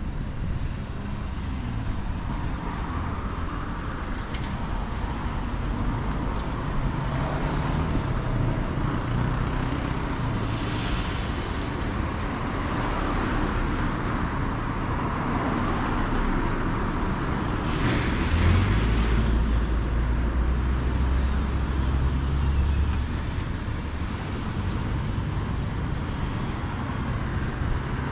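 Road traffic going by steadily, cars passing one after another. About two-thirds of the way in, a passing vehicle adds a deep engine rumble for several seconds.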